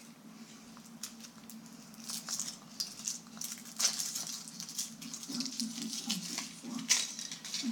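Foil wrapper of a Kinder Egg being peeled off the chocolate egg by hand: irregular crinkling and rustling of thin foil.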